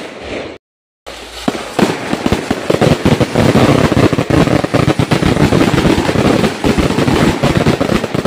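Fireworks going off in a dense, rapid barrage of sharp cracking bangs, many a second. The barrage starts after a brief dropout about a second in.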